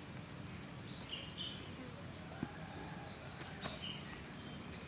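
Quiet outdoor ambience: a steady high-pitched insect drone with a few short bird chirps and a faint tick or two.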